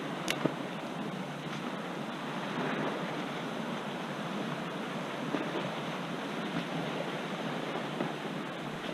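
Choppy river water splashing and washing steadily around a kayak, with wind noise on the microphone; two short knocks about half a second in.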